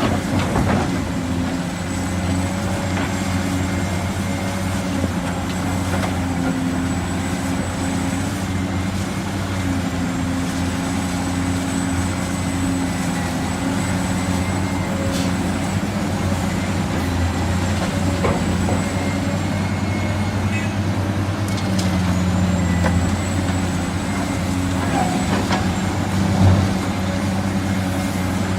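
Heavy diesel construction machinery running steadily, with a thin high whine above the engine and a few short knocks, the loudest about two-thirds of the way through.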